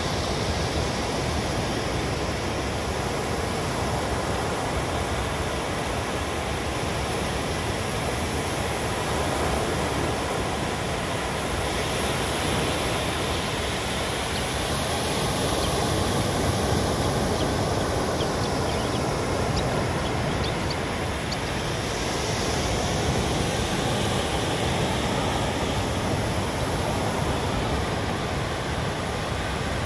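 Sea surf: a steady wash of waves breaking, swelling a little now and then.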